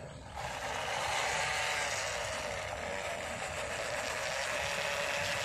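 Electric motor and gearbox of an MN99S 1:12 scale RC crawler whining as it drives over dirt, starting about half a second in, its pitch wavering with the throttle.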